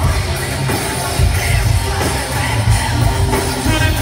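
Live rap-rock band playing loudly through a venue PA, with a heavy bass and drum pulse under electric guitar.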